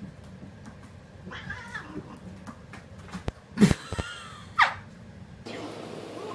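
Domestic cats caterwauling: a drawn-out yowl about a second in, then two loud, sharp cries a second apart, the last falling in pitch.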